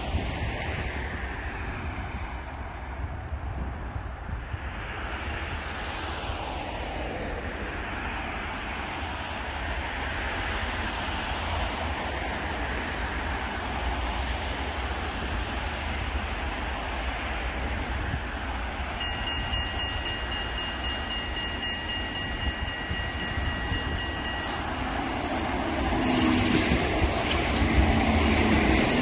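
Coupled Siemens Combino trams running on their rails with a steady rumble. A high steady squeal sounds for about five seconds in the second half, and near the end the running grows louder, with clicking.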